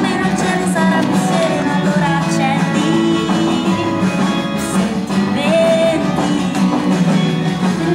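Music: an upbeat song with acoustic guitar and a woman singing.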